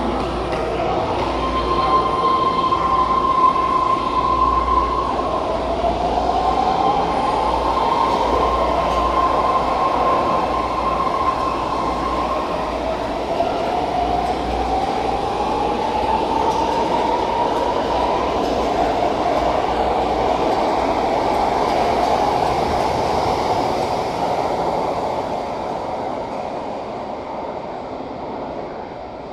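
BART train departing a station. Its propulsion whine holds steady at first, then climbs in pitch in a series of rising sweeps as it accelerates, over rumbling wheel and rail noise. The sound fades near the end as the train pulls away.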